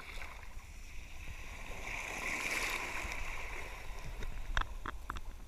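A mountain bike riding through a shallow stream ford close by, its tyres splashing and swishing through the water, loudest about halfway through, followed by a few sharp clicks near the end.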